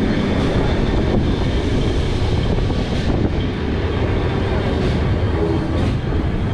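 Lisbon's vintage yellow Tram 28, heard from on board as it runs along its narrow-gauge street track: a steady, loud rumble of wheels on rails and running gear, with a few faint clicks.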